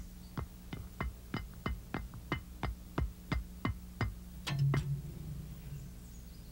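High-heeled shoes clicking on a stone path, about three steps a second, then a few louder knocks and a clank as a wrought-iron gate is reached and opened, over a steady electrical hum.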